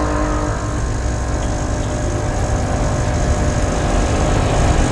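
Gemilai CRM 3018 espresso machine's pump running steadily, pushing water through the group head on its programmed single-espresso shot after pre-infusion.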